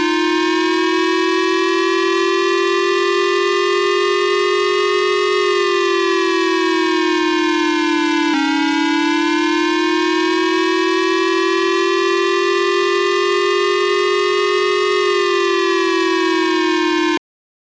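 Civil defense siren wailing: one loud pitched tone that slowly rises and then falls, twice, with a sudden jump in pitch about eight seconds in. It stops abruptly shortly before the end.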